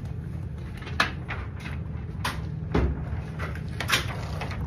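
Several short, sharp knocks and clicks, about five spread through the stretch, the strongest about a second in and again near the end, over a steady low hum.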